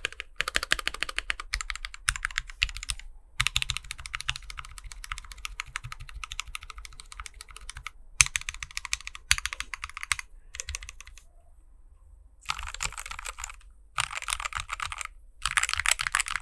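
Typing on a Gamakay K77 mechanical keyboard with lubed switches and Holee-modded stabilisers: fast runs of key clacks in bursts, broken by short pauses and a longer lull about two-thirds of the way through.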